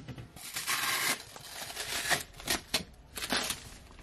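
Rustling and crinkling of the soft protective wrap on a new iMac as it is handled: one longer rustle about half a second in, then several short, crisp rustles.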